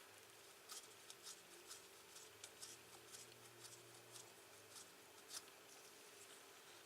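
Near silence: room tone with a faint steady hum and a dozen or so faint, scattered small clicks and ticks.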